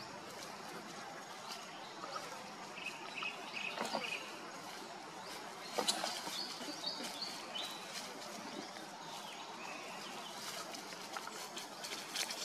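Birds chirping in short, scattered high calls over steady outdoor background noise, with a brief crackle of dry leaves just before six seconds in as the macaques shift about on the leaf litter.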